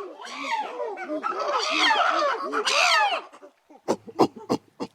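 A dog's rapid, high-pitched yelping and whining calls, rising and falling in pitch. Near the end they give way to a string of short, sharp yips.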